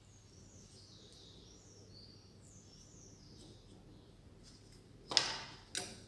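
Handling noise on a wooden workbench: two short scraping, rustling sounds about a second before the end, the first louder and fading over half a second. Before them it is quiet, with faint high chirps in the background.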